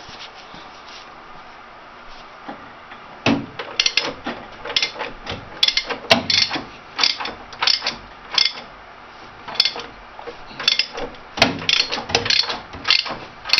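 Ratchet wrench clicking in repeated short back-and-forth strokes, starting about three seconds in, as the crankshaft of a 1942 Ford GPW jeep's engine is turned by hand to feel how much resistance it gives.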